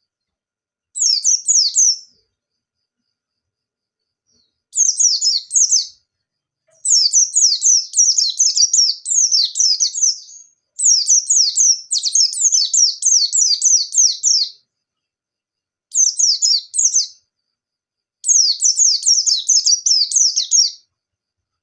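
Pleci (white-eye) in full song, the fast 'nembak' style: six phrases of rapid, high, down-slurred notes, each lasting one to four seconds, with short silent pauses between them.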